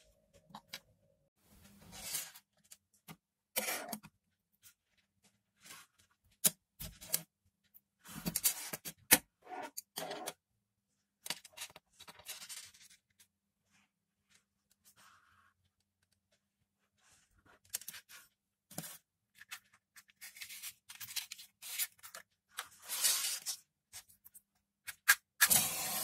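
Thin wires and an earphone cable being handled and twisted together on a tabletop: irregular scrapes, rustles and small clicks, with a quiet pause about halfway through.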